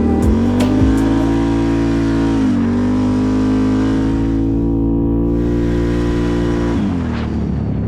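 Can-Am Renegade ATV's V-twin engine pulling under throttle. It rises in pitch over the first second, holds steady with a brief dip in the middle, then falls off near the end as the throttle is eased.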